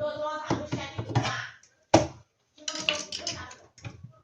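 A screwdriver scraping a hardened, scale-like deposit off the drain valve of a semi-automatic washing machine, with scratching and squeaking and a sharp click about two seconds in. The deposit was holding the rubber seal open and making the drain hose leak.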